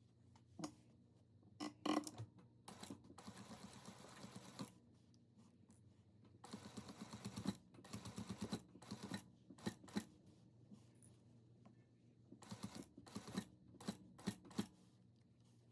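Faint handling sounds of sewing work: scattered clicks, rustles and scrapes of fabric and tools, with two longer stretches of fast, dense ticking.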